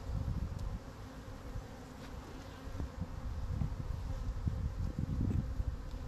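Honeybees buzzing around an open hive: a steady hum, with irregular low rumbling and bumps over it.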